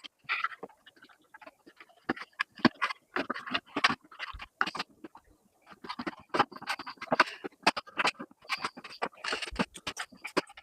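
Irregular clicks, taps and rustling of parts and tools being handled on a workbench.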